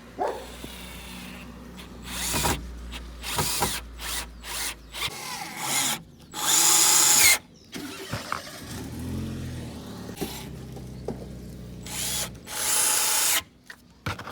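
Handheld power tool run in a series of short bursts, two of them longer and louder, a little past the middle and near the end.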